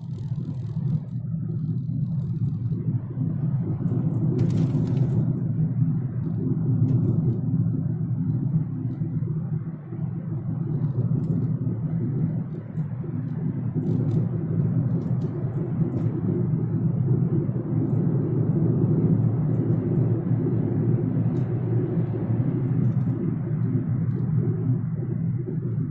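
Car driving through a road tunnel: a steady low rumble of engine and tyres, which rises sharply at the start and carries on evenly, with a brief hiss about four seconds in.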